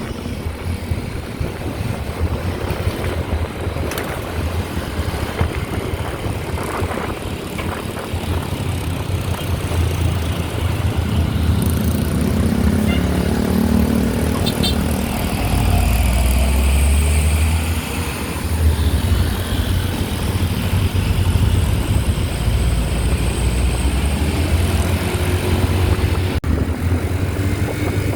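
Low, steady rumble of road vehicles' engines running, swelling in the middle, with no musical horn sounding.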